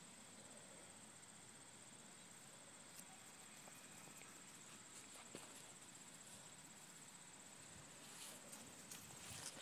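Near silence with a faint, steady, high-pitched insect trill, and a few faint ticks and rustles near the end.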